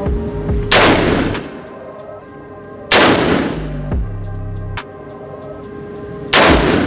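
Three single gunshots on a firing range, about two and three and a half seconds apart, each followed by a short fading echo.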